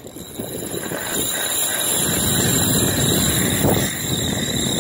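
Wind rushing over the microphone, growing louder over the first two seconds and then holding steady.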